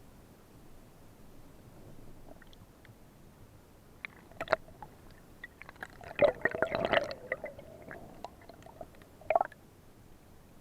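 Underwater water sounds: a few sharp clicks, then about six seconds in a louder gurgling spell of a second or two with clicking, and another click near the end.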